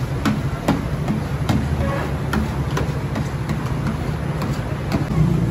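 A steady low engine-like hum, with scattered light knocks and clicks as thick gravy is scraped out of a plastic bucket into a large steel cooking pot.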